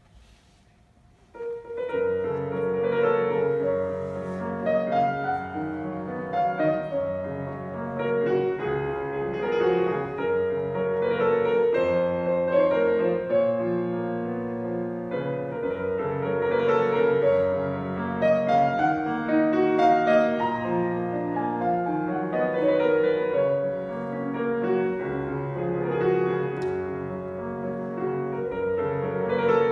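Piano playing a classical piece, a flowing run of chords and melody notes that begins suddenly about a second and a half in.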